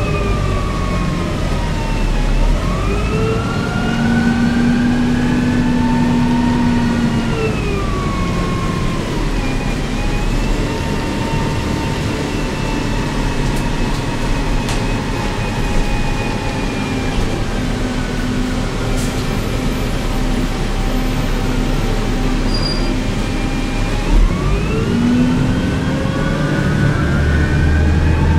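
Cabin sound of a 1998 New Flyer C40LF bus whose Cummins C Gas Plus engine is modified to run partly on hydrogen: a steady low engine drone under a whine of several gliding tones. The whine rises as the bus gathers speed and falls as it slows, twice.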